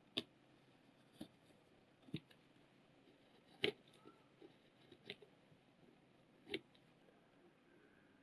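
A leather skiving knife shaving thin strips off the edge of a leather piece: about six short, faint scrapes roughly a second apart, the loudest a little past halfway.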